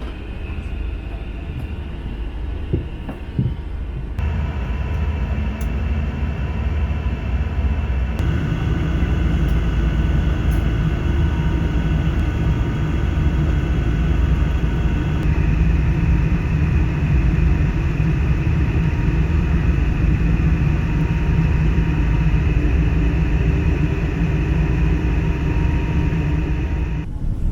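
Steady rumble of engine and airflow noise inside a Boeing 777-300 airliner cabin, in a few short clips joined by cuts.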